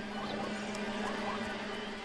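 Background music: a low note held steadily, with fainter sustained tones above it.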